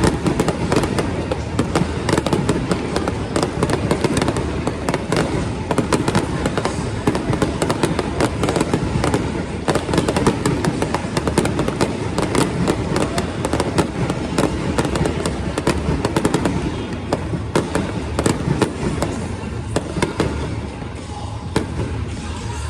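Fireworks display going off: a continuous, dense barrage of crackling and bangs, many reports a second without a break.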